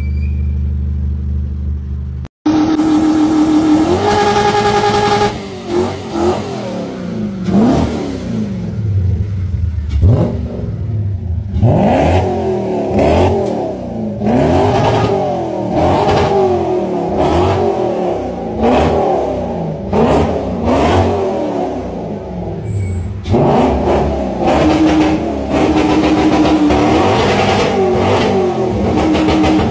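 BMW E30 323i's 2.3-litre straight-six revved again and again through an aftermarket twin-tip exhaust. The revs rise and fall every second or two, and are held steady for a few seconds early on and again about three-quarters of the way through. For the first two seconds, before an abrupt cut, another car's engine idles steadily.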